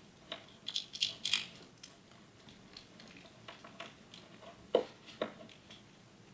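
Small parts and wiring being handled by hand: scattered light clicks and crinkly rattles, a quick flurry of them about a second in, then two sharp taps near the middle, the first the louder.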